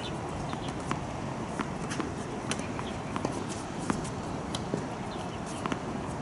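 Tennis balls bouncing on a hard court: scattered sharp knocks at irregular intervals, over a steady background hiss.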